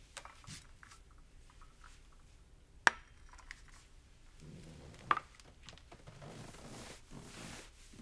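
China cup and saucer set down on a glass-topped table: two sharp clinks, about three and five seconds in, with soft rustling of clothing and movement between and after.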